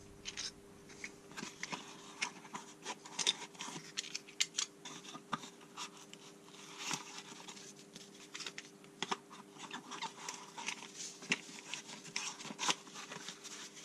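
Tools being handled: scattered light clicks, taps and scrapes of metal pieces being picked up and set down, over a faint steady hum.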